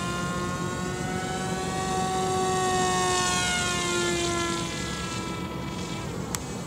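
Electric motor and stock propeller of a Lanyu Hobby RC FPV glider plane in flight, a steady whine whose pitch bends down, up and down again as the plane passes. It is loudest in the middle and fades somewhat after about five seconds.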